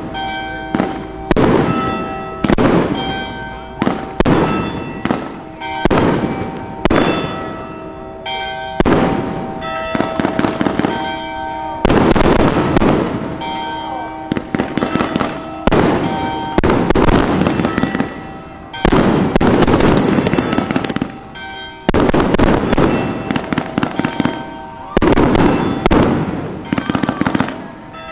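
Aerial fireworks display: shells bursting in quick succession, about one bang a second, many followed by crackling.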